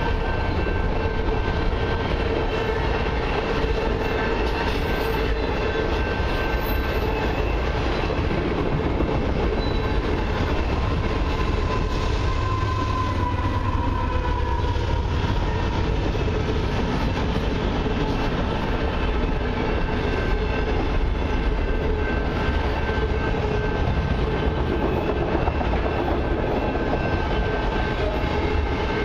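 Autorack freight cars of a long freight train rolling steadily past close by: a continuous rumble and rattle of steel wheels on rail, with a few thin steady whining tones over it.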